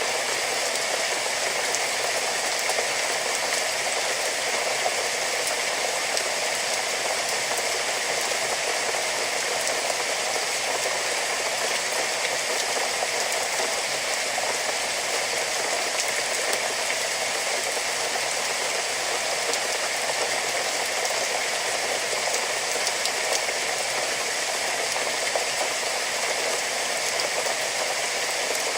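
Steady rain falling, an even patter and hiss with no let-up.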